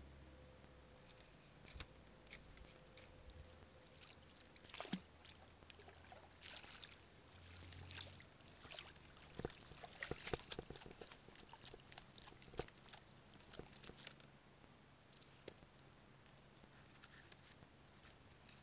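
Faint small splashes of water and scattered light clicks and crackles from someone wading through shallow water, busiest around the middle.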